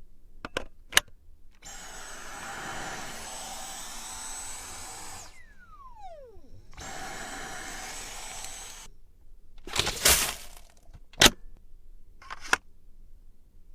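Cordless stick vacuum running in two spells of a few seconds each, with a steady high whine over its airflow noise. Between the spells, as the motor spins down, the whine falls in pitch. Sharp clicks and knocks come near the start and in the last few seconds.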